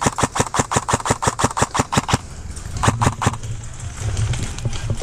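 Airsoft rifle firing on full auto: a fast, even stream of sharp clicks, about eight a second, for about two seconds, then a short second burst about three seconds in.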